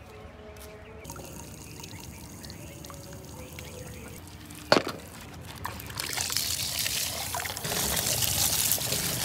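Liquid being poured in a steady stream, starting about six seconds in, with a single sharp knock shortly before.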